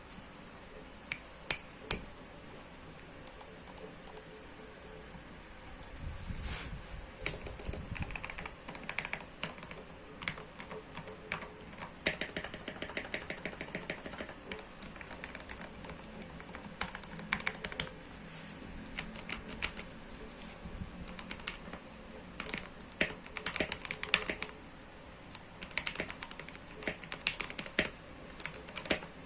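Mechanical keyboard with Gateron Yellow linear switches, an acrylic plate and case, and OEM-profile keycaps being typed on: a few single keystrokes, then runs of fast typing in bursts.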